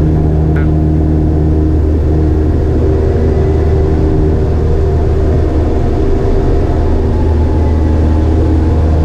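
Single-engine light plane's piston engine and propeller running steadily at full takeoff power during the takeoff roll, a loud, even drone heard from inside the cockpit.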